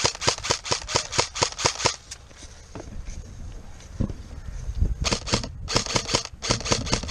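Airsoft gun firing quick repeated shots, about six a second. One string of shots runs for two seconds, there is a pause, and a second string starts about five seconds in.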